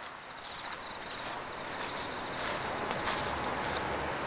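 Insects, crickets by the sound of it, calling steadily: a continuous high-pitched chirring with short, rapid trills repeating over it.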